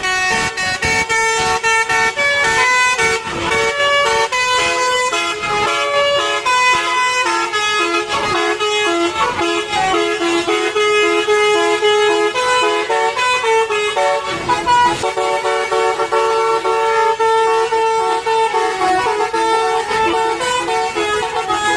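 Telolet bus horns: the multi-tone musical horns of two buses sounding back and forth in a telolet battle. They play a continuous run of short held notes that step up and down in pitch like a tune.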